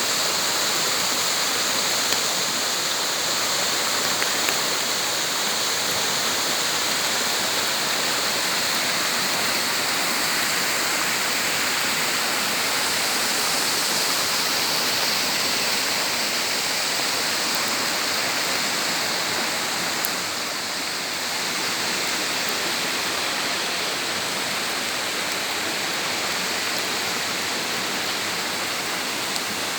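Waterfall: water pouring and rushing in a steady, unbroken roar of noise.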